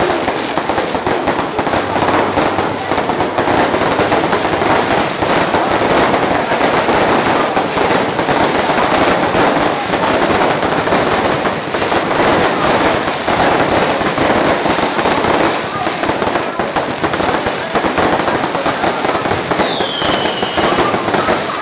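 Fireworks going off in a dense, unbroken crackle of rapid small bangs. A short falling whistle sounds near the end.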